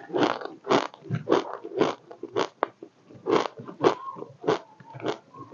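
Close-up mouth sounds of someone chewing crunchy snack chips, a crisp crunch about twice a second.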